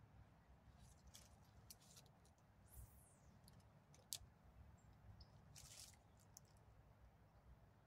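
Near silence, broken by a few faint, short clicks and brief rustles, with the sharpest click about four seconds in.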